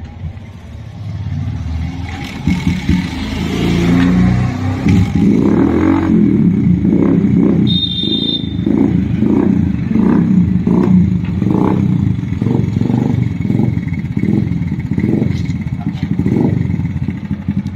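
Bajaj Kawasaki Caliber 115 motorcycle's small single-cylinder engine running through an aftermarket SC Project-style exhaust. It builds up over the first few seconds, then is revved in quick repeated throttle blips, about two a second.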